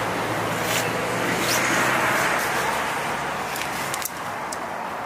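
Road traffic going round a busy roundabout: the hiss of tyres and engines swells about two seconds in, then falls away about four seconds in. A few sharp light clicks close by.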